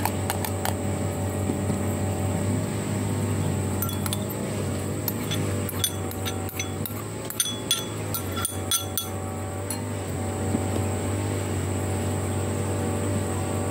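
A string of light, sharp clinks of a utensil against a ceramic bowl in the middle of the stretch, as chopped greens are tipped into the bowl, over a steady background drone.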